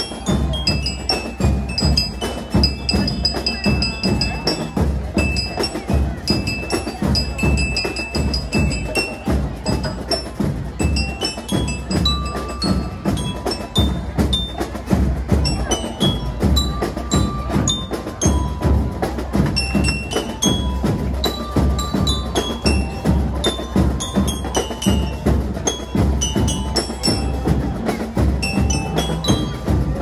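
Marching band playing a piece: drums and cymbals keep a steady beat under a tune of high bell-like notes from bell lyres, with melodicas and brass.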